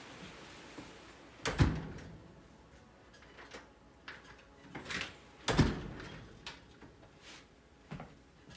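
A door that the wind keeps blowing open, banging shut: two loud thuds about four seconds apart, with lighter knocks and clicks between and after them.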